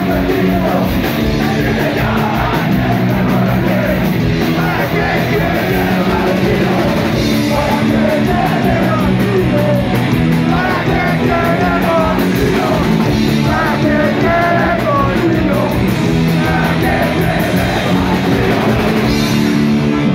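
Punk band playing live at full volume: a fast, driving drumbeat under electric guitar and bass, with shouted, yelled vocals.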